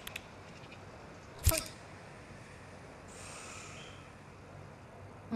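A disposable lighter being struck: one sharp click with a brief ring about a second and a half in, then a short hiss about three seconds in, after a few quick ticks at the very start.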